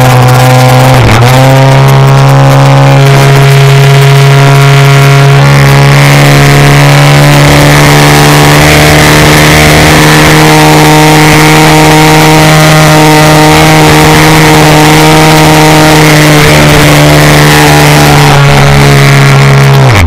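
Engine of a radio-controlled aerobatic model plane, recorded from a camera on the airframe, running loud and steady at high throttle. Its pitch dips briefly about a second in and drops and wavers near the end as the throttle changes through the manoeuvres.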